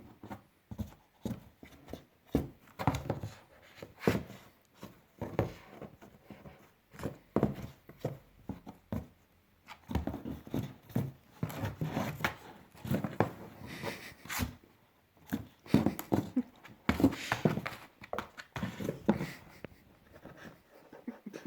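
A young puppy playing: irregular scrabbling, tapping and knocking of paws and claws as it pounces and scuffles.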